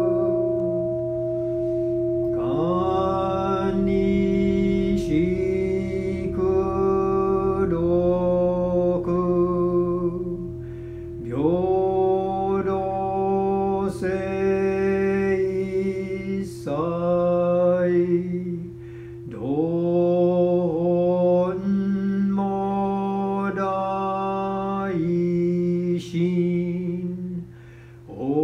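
A solo voice chanting a Buddhist liturgical chant in slow, drawn-out sung syllables, each phrase sliding up into its note, over steady held background tones. The phrases are broken by short pauses.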